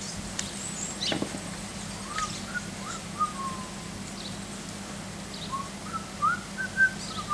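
Birds chirping in short rising and falling calls, with a light knock about a second in and a faint steady hum underneath.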